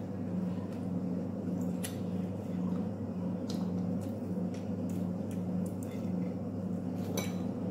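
Someone eating with a metal spoon: a few faint spoon clicks and soft chewing over a steady low hum.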